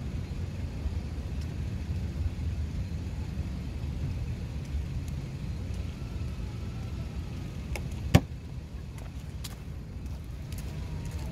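Steady low outdoor rumble, with a single sharp click about eight seconds in.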